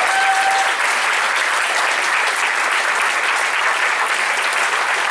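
A room full of people applauding steadily, with one voice holding a call over it for the first second.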